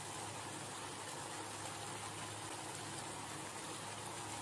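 Steady sizzling and simmering of chicken masala cooking in oil in a nonstick pan, with a low steady hum underneath.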